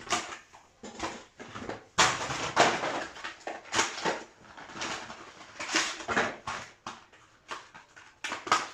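Card-game packaging being handled and opened: a quick string of rustles, scrapes and clicks.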